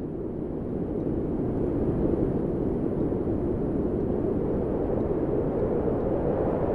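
Strong wind blowing: a steady, deep rushing noise with no whistling tones, swelling slightly over the first couple of seconds.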